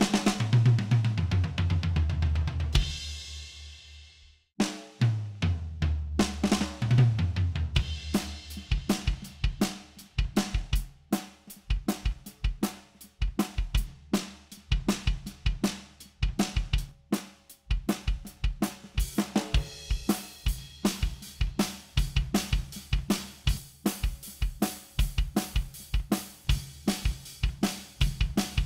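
Recorded acoustic drum kit played back through the Vertigo Sound VSM-4 harmonic distortion plugin. A tom fill with a crash cymbal opens, and playback stops about four seconds in. It restarts with another tom fill, then settles into a steady groove of kick, snare and hi-hat.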